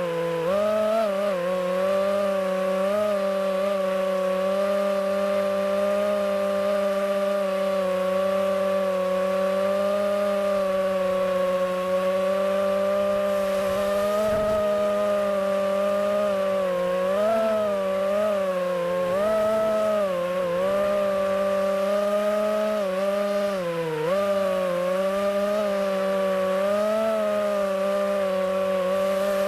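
FPV racing quadcopter's brushless motors and propellers whining steadily, the pitch dipping and climbing again several times as the throttle is cut and pushed back up.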